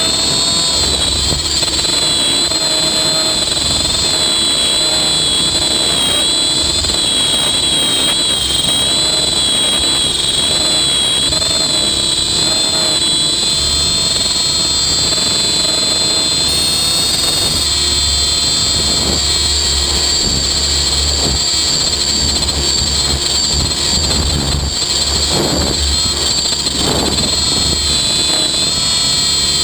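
Electric 90-size RC helicopter in flight, heard from a camera on its tail boom. The electric motor and rotors give a steady high-pitched whine that wavers slightly with changes in head speed, over a low rumble of rotor wash and wind that comes and goes.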